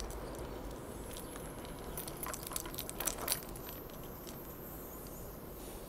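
SEPTA regional rail electric train pulling away and fading as a low rumble in the distance. A cluster of sharp clicks and crackles about two to three seconds in is the loudest part.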